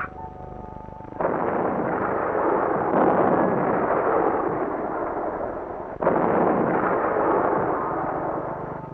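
A loud, steady rushing roar of noise cuts in suddenly about a second in, breaks off for an instant near six seconds and starts again. A few held musical notes sound just before it.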